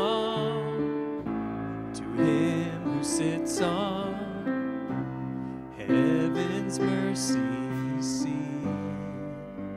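Live worship band playing a slow song led by piano or keyboard with bass guitar, a male voice singing the melody with vibrato over it.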